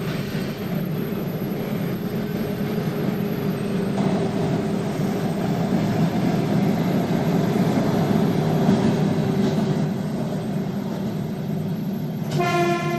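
Train running through a station, a steady rumble that grows louder toward the middle and eases. A short single-tone horn toot sounds near the end.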